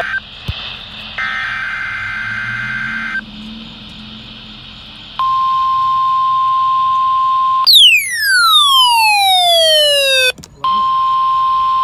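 NOAA Weather Radio warning alarm tone: a loud, steady single tone of about 1050 Hz starting about five seconds in, after a few seconds of radio hiss. A sweep falling from high to low breaks it for about two and a half seconds, then the tone resumes.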